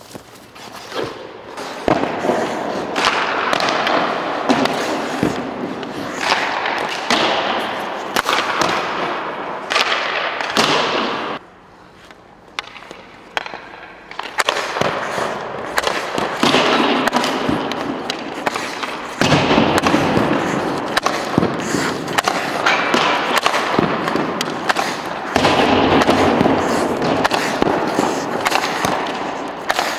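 Hockey goalie's skate blades scraping and carving across rink ice, with sharp clacks of pucks and sticks striking the pads, ice and boards.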